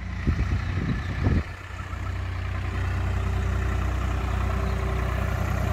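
Swaraj 855 FE tractor's three-cylinder diesel engine running steadily as it pulls a laser land leveller, growing slowly louder as it comes closer. A few brief thumps near the start.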